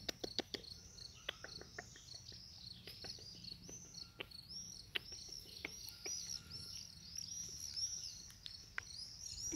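Insects chirping steadily, a dense overlapping chorus of high, repeated chirps, with scattered light clicks.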